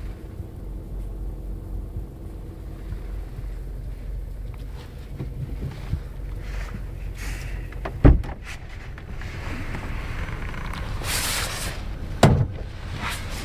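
Opel Corsa D 1.4 four-cylinder petrol engine idling warm, with the ticking of its fuel injectors, which the owner considers normal. Two loud thumps break in, about eight and twelve seconds in, and there is a short rush of hissing noise just before the second.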